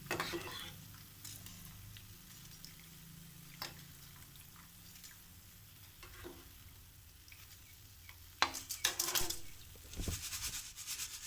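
Boondi frying in hot oil with a faint sizzle, while a metal slotted ladle is drawn through the oil to scoop the fried pearls out. A few light taps early on, then bursts of scraping and clinking of the ladle against the pan in the last few seconds.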